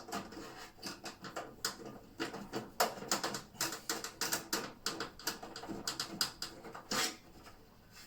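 Irregular run of sharp clicks, knocks and rattles, with a louder knock about seven seconds in, as cables are plugged into a tower PC and the case is handled.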